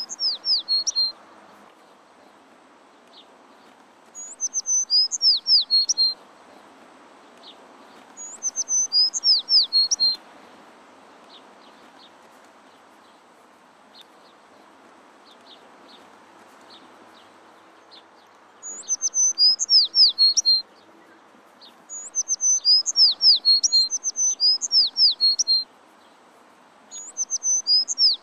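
A songbird singing in short phrases of high, quick downward-sweeping notes, a phrase every few seconds with longer gaps between some, over a faint steady background hiss.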